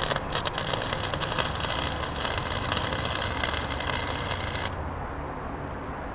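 Harbor Freight 90 amp flux-core wire welder (DC electrode negative, 0.030 wire) arc crackling steadily as a tack weld is laid on mild steel pipe, cutting off about two-thirds of the way through. A steady low hum runs underneath.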